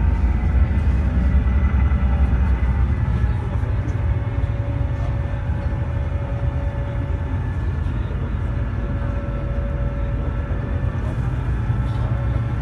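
Airport apron shuttle bus driving, heard from inside its cabin: a steady low engine rumble with a faint whine above it.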